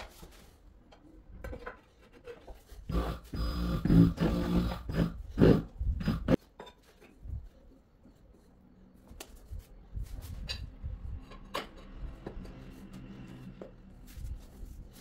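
Wordless vocal sounds for about three seconds, then quiet with a few light scattered clicks and taps from hands working along the floor tiles at the wall.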